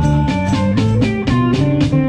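Live blues-rock band playing: electric guitars and bass over a drum kit keeping a steady beat, about four hits a second.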